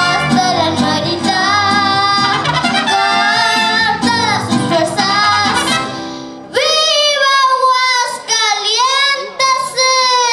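A young girl singing with a mariachi band of violins, trumpets and guitars. About six and a half seconds in, the band drops out and she sings on alone in long held notes with vibrato, the last one starting to slide down in pitch near the end.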